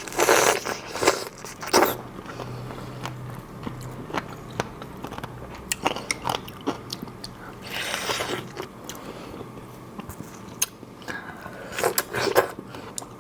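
Close-miked biting and chewing of large, juicy fresh strawberries: wet bites and mouth sounds at irregular intervals, with louder bites about eight and twelve seconds in.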